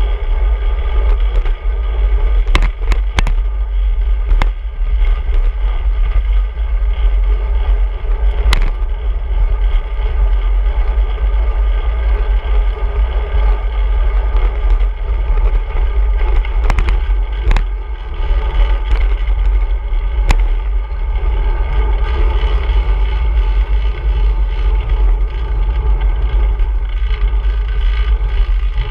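Steady wind rumble and road noise on a handlebar-mounted action camera while a bicycle is ridden along a road, with a few sharp knocks and rattles from bumps in the road.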